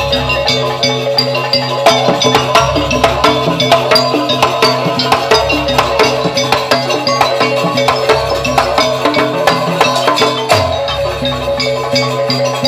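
Javanese gamelan ensemble playing jaranan dance accompaniment: rapid, dense strokes on metal percussion and drums over ringing sustained tones, with a low boom every two to three seconds.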